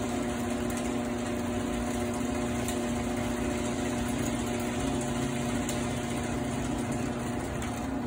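Overhead garage door opener motor running with a steady hum as it drives the trolley along the rail to reconnect with the released arm during the reset cycle. The hum stops near the end.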